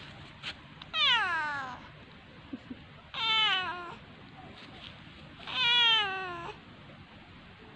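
Domestic cat meowing three times, each call under a second long, the first sliding down in pitch and the other two held more level.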